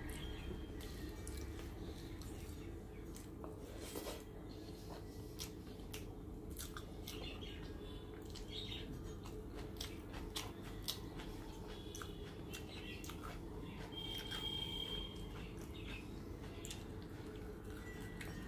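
Eating by hand: fingers mixing rice with dal and curry on a plate, with small wet clicks and squelches, and chewing, over a steady low hum.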